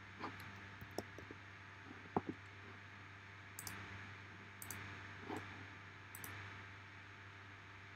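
Faint, scattered clicks of a computer mouse and keyboard, about a dozen in all, over a low steady hum.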